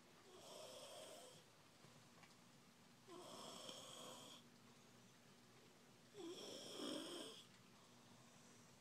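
A sleeping toddler snoring, three snores about a second long each, roughly three seconds apart, sounding like a grown man.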